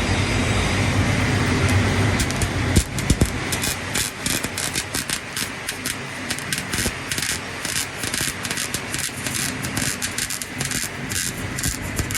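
Electric arc welding: a steady low hum gives way, about three seconds in, to a fast, irregular crackling that runs on.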